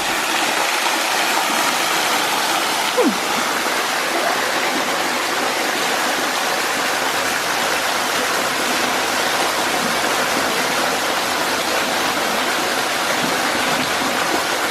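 Waterfall rushing steadily, a constant hiss of falling water. A short downward-sliding tone cuts in briefly about three seconds in.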